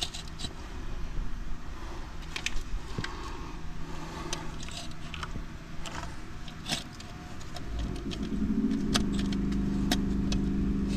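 Scattered light metallic clicks and clinks from handling the clutch release fork and throw-out bearing at a manual transmission's input shaft. A steady machine hum starts about eight seconds in.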